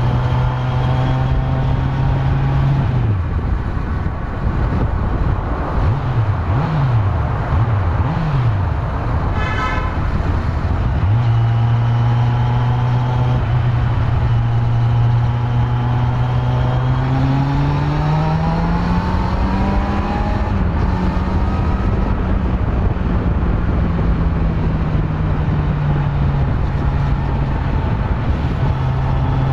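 Kawasaki Z900's stock inline-four engine running on the move. The pitch holds steady, then falls and rises several times a few seconds in as the revs change, and climbs higher around twenty seconds in before settling. A short high beep sounds about ten seconds in.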